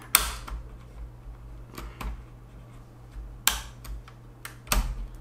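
Sharp plastic clicks and knocks of a keycap puller working keycaps on a Corsair Strafe RGB mechanical keyboard. There are a handful of clicks spread out over the few seconds, the loudest just after the start and again near the end.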